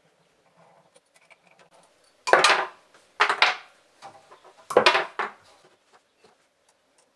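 Compound slide of a mini metal lathe being lifted off and set down. There are three loud metallic clunks with a short clatter, about a second apart between roughly two and five seconds in, and small clicks of handling between them.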